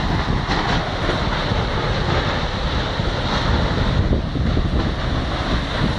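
Tornado-force wind buffeting the microphone: a loud, steady rush of wind noise.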